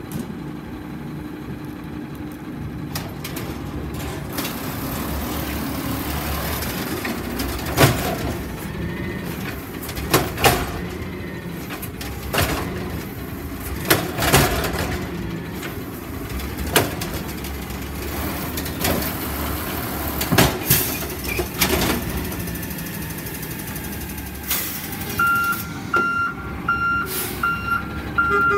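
Waste Management natural-gas automated side-loader garbage truck running while its arm lifts a green-waste cart and tips it over the hopper, with a string of sharp, loud metal clunks as the cart is dumped. Near the end the truck's reversing beeper starts a steady run of beeps.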